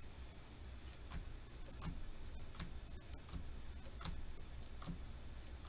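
Pokémon trading cards being flicked through one at a time by hand, each card giving a light snap, about one every three-quarters of a second, over a low steady hum.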